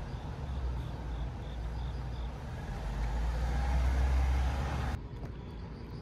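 Outdoor traffic noise: the low rumble of a passing vehicle swells to its loudest about four seconds in, then drops away suddenly to quieter outdoor ambience. Faint high chirps repeat about three times a second during the first two seconds.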